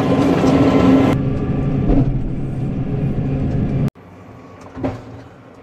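Tractor engine running at a steady pitch under load while ploughing snow. It cuts off abruptly about four seconds in, leaving only faint quiet sounds.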